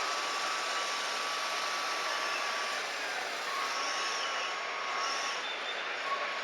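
Small electric motors and gearboxes of 1/14-scale RC construction machines and trucks whining steadily, over a constant background hiss; the whine drops out briefly a little before the middle and then resumes.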